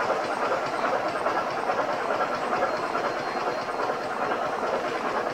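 Locomotive standing and running: a steady hiss with a fast, fine rattle, even throughout.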